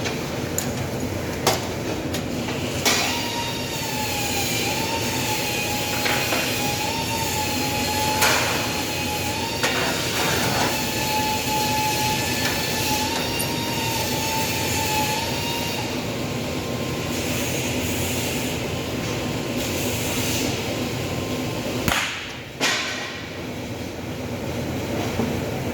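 Steady workshop machinery noise with a wavering whine for about twelve seconds, and a few sharp clicks or knocks.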